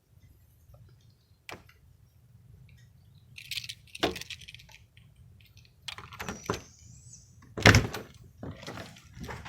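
Scattered clicks and knocks of handling, a short high squeak that glides up and down, then a loud thump near the end.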